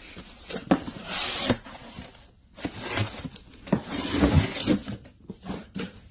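A cardboard shoebox being handled and pulled from its packaging: two stretches of scraping and rustling, about a second in and about four seconds in, with several sharp knocks of the box against things.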